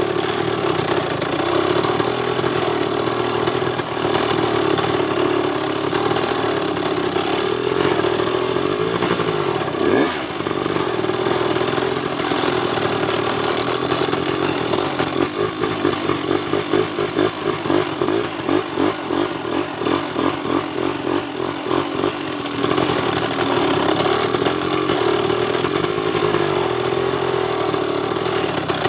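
Motorcycle engine running steadily while the bike rides along. Its sound pulses unevenly from about fifteen to twenty-two seconds in, with a single knock about ten seconds in.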